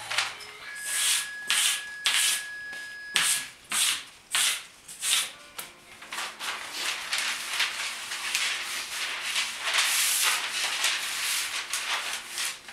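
Paper rolls being handled and unrolled across a wooden tabletop: repeated rubbing, rustling strokes that come closer together and run into a continuous rustle in the second half.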